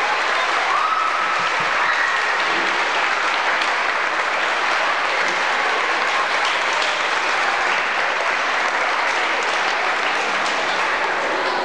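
Audience applauding steadily as a graduating class stands to be presented.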